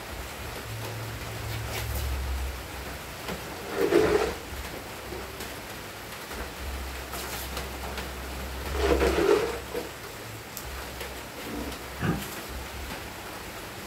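Piglets grunting, with two longer grunts about four and nine seconds in and a few shorter sounds, over a steady hiss.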